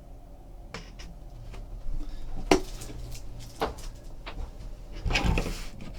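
Scattered knocks and clatters of things being handled and set down on a table, the sharpest about two and a half seconds in and a short rattling cluster near the end.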